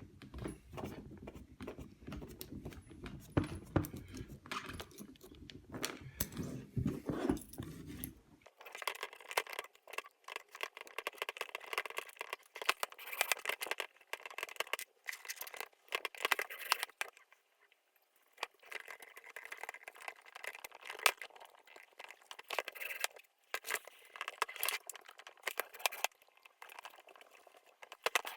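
Irregular clicks, clinks and light rattles of metal frame parts and tools being handled during 3D printer assembly. About eight seconds in, the sound abruptly turns thin, losing all its low end.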